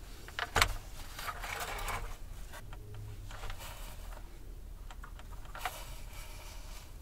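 Plastic tray sliding into the glass tube of a GoSun Go solar oven, with a couple of knocks about half a second in and scraping for a second or so. The end cap is then handled onto the tube, with one small click near the end.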